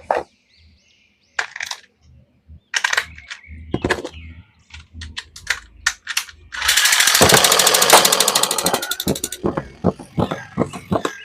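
Handling noises of toys and their packaging: scattered clicks and taps. From about six and a half seconds in comes roughly three seconds of loud, very rapid rattling, then quick clicks several times a second.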